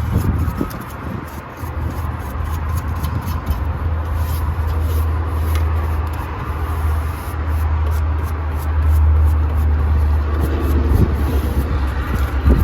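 Stiff brush scrubbing out the bottom of a furnace's heating section, irregular scratchy strokes over a steady low rumble.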